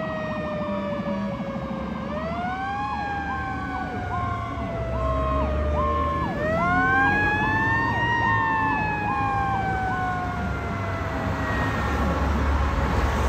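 Fire engine siren in a slow wail: the pitch rises quickly twice and falls away slowly each time. Over it a second tone pulses about once a second. The siren fades out near the end as the low rumble of nearby traffic grows.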